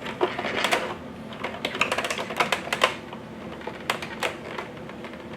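Irregular light clicks and taps of a doll being handled and fitted into a plastic toy car's seat, thickest in the first three seconds, then a few more about four seconds in.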